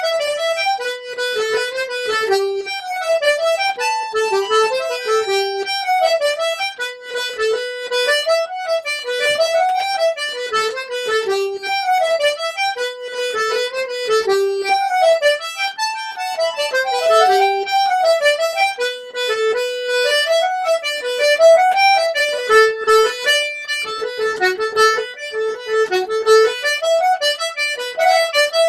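Two button accordions playing an Irish reel together, a fast unbroken run of notes.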